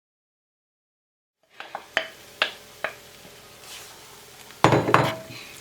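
Silence for about a second and a half, then a cooking utensil knocking and scraping against a pot several times, with short metallic rings. A louder clatter comes near the end, as the beans are added to the pot of frying vegetables.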